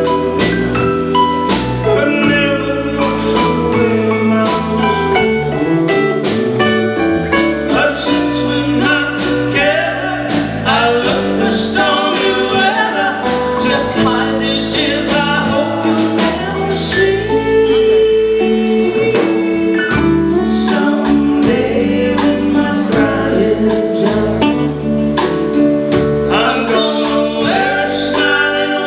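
Live band playing a song with singing over it, the drums keeping a steady beat.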